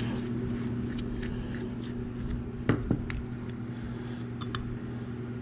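Small metallic clicks and taps from a screwdriver working the side-panel screws of a Johnson Century spincast reel, the loudest about two and a half seconds in, over a steady low hum.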